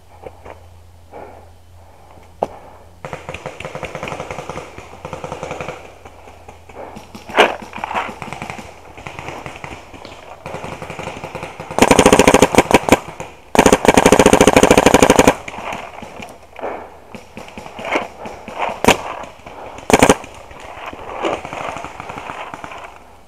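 Dye Proto Rail paintball marker firing two long rapid strings of shots about halfway through, each lasting a second or so. Quieter rapid paintball fire comes from farther off early on, with a few single pops near the end.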